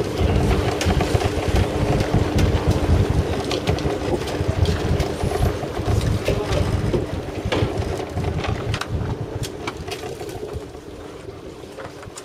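Wind buffeting the microphone on the deck of a fishing boat at sea, with a steady low hum that fades after about eight seconds and scattered clicks and knocks. The wind gets quieter near the end.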